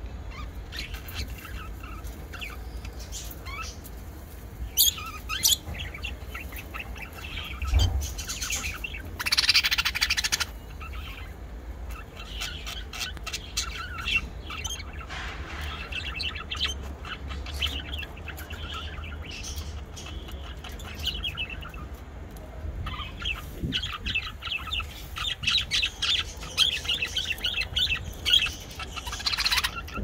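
A pair of budgerigars chirping and chattering in short calls, with a louder, longer squawk about nine seconds in and a run of rapid, dense chatter over the last several seconds.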